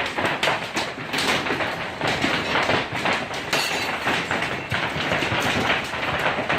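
Heavy hail pelting down, a dense, continuous clatter of many hailstones striking hard surfaces.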